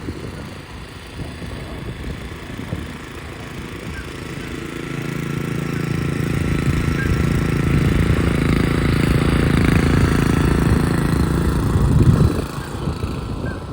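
Self-propelled petrol lawn mower engine running steadily under its own drive, growing louder over several seconds, then dropping off sharply about twelve seconds in with a brief thump.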